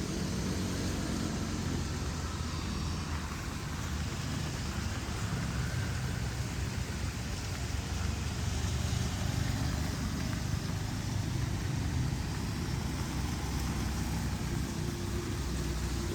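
Steady rain with a low, steady rumble underneath.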